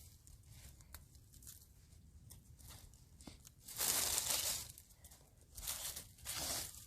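Rake scraping through dry leaves and debris: three rustling strokes, the first about four seconds in and the longest and loudest, then two shorter ones close together.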